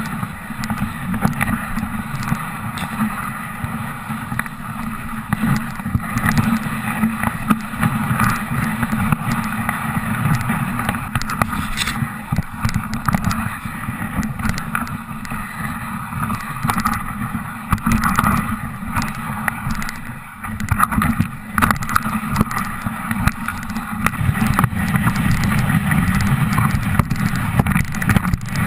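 Dog sled gliding over a snow trail: a steady, rumbling scrape of the runners on snow, with small rattles and knocks from the sled.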